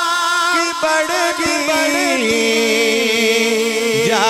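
A man singing a naat into a microphone in a long drawn-out melismatic line that wavers, settles on a held note, then slides down in pitch near the end.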